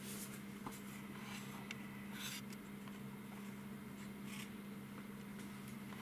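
Light scrapes and rustles of small things being handled, the longest about two seconds in, over a steady low electrical hum.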